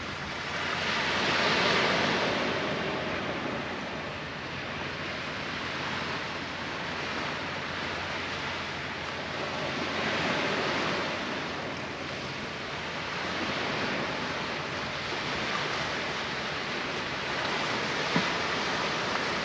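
Sea surf breaking and washing up the beach, a steady rush that swells and eases every few seconds.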